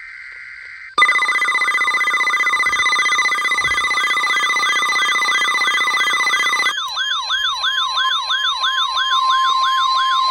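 Emergency alert tones announcing a tornado warning. About a second of buzzy digital header data comes first. Then two steady alert tones play under a rapid wailing siren sweep that repeats about three times a second, and about two-thirds of the way in the steady tones switch to a single lower steady tone while the siren wail continues.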